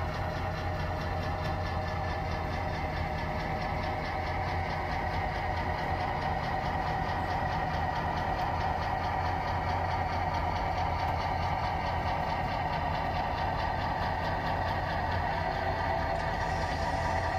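Sound of a model diesel locomotive running steadily, with an even engine-like drone, as it slowly shoves a cut of boxcars on the layout.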